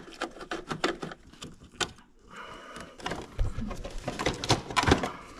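A socket ratchet clicks in quick runs as the 8 mm bolts holding the Gold Wing GL1500's front grill are loosened. This is followed by rustling and knocking as the grill is worked free by hand.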